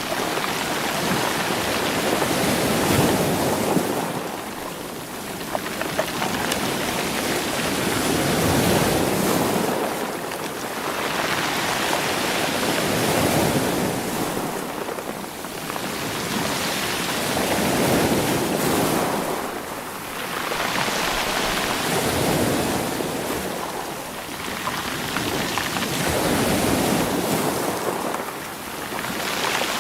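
Sea waves breaking on a rocky, stony shore and washing back, rolling the stones, in surges that swell and ebb about every four to five seconds.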